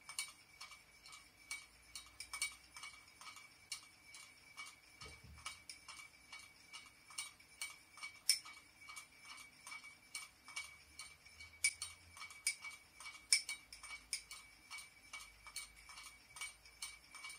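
Teaspoon stirring in a small china coffee cup, clinking against its sides in a steady run of light clinks about three a second, some louder than others, over a faint steady ring.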